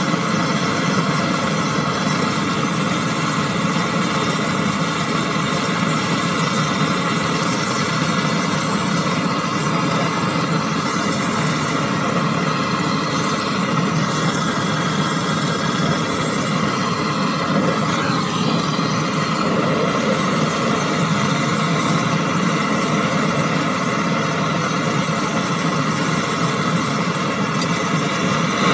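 Gas brazing torch burning with a steady hiss while a copper condenser pipe is brazed onto a deep-freezer compressor.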